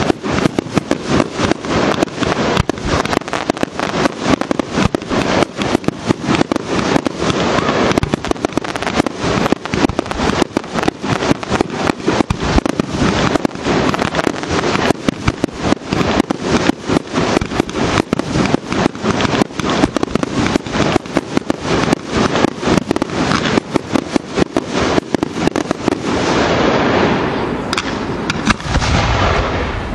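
Fireworks firing in a rapid, continuous barrage of bangs and crackles, several shots a second, thinning out near the end.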